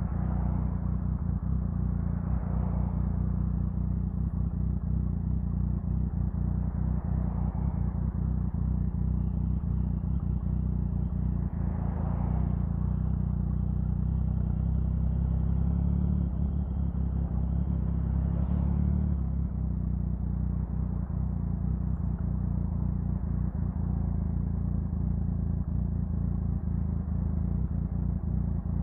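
Triumph Sprint 1050's three-cylinder engine running steadily, its note shifting briefly about 16 seconds in, with several soft whooshes rising and fading over it.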